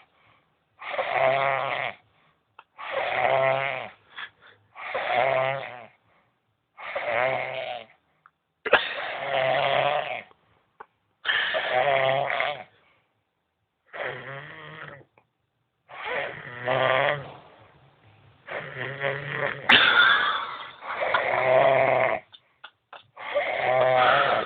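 A young man snoring, one snore about every two seconds, each lasting about a second.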